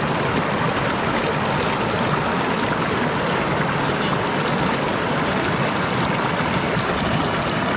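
Steady rush of water flowing over a waterfall.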